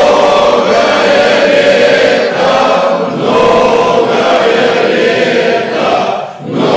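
Several voices chanting an Orthodox church hymn together in long held phrases, with a short break for breath near the end.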